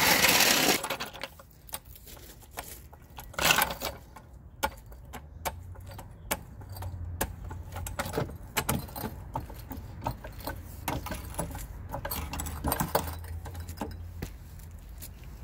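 Scattered metallic clinks and jangling of hand tools and wheel bolts being handled, with a burst of rustling handling noise in the first second and another about three and a half seconds in.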